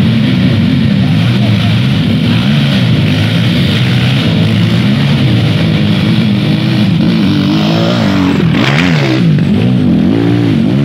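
Several dirt bike engines revving up and down as they climb a steep dirt hill, the pitches overlapping. Near the end one engine revs hard, rising and falling sharply.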